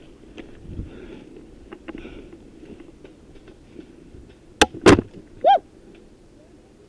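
Two sharp cracks, half a second apart, from airsoft BBs striking a camera worn by the player, over low rustling of movement. A brief pitched vocal sound follows just after the cracks.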